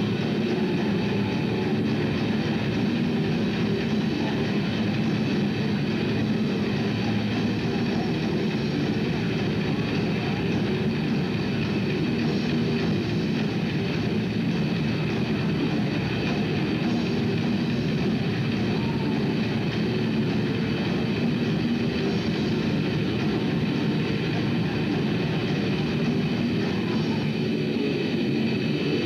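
Heavy metal band playing live: heavily distorted electric guitars, bass and drums in a dense, steady wall of sound.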